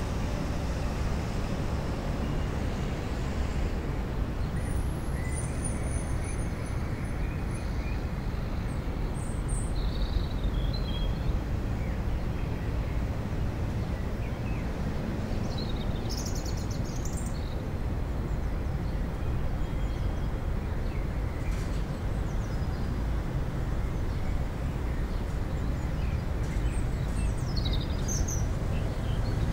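Outdoor ambience: a steady low rumble like distant traffic, with a few faint bird chirps now and then.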